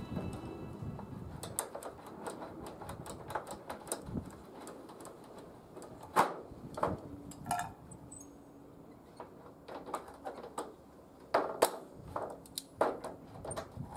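Irregular light clicks and knocks of hand work with tools and wooden boards, at no steady rhythm.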